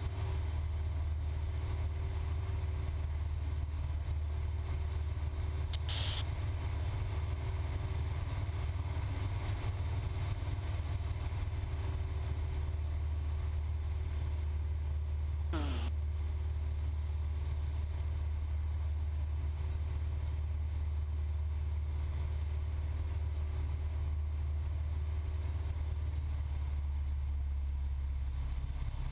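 Cessna 172's piston engine and propeller droning steadily in the cabin in level flight on the downwind leg. Two short clicks break in about ten seconds apart.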